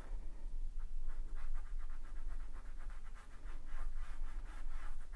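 Small paintbrush scratching on fabric in quick, short, repeated strokes, several a second, over a steady low hum.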